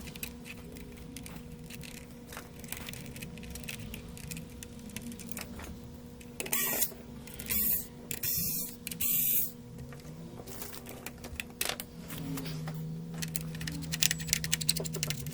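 Small clicks and knocks of parts being handled during a console teardown, over a steady electrical hum. There are four short hissing bursts in the middle, and a steady low motor-like tone starts near the end.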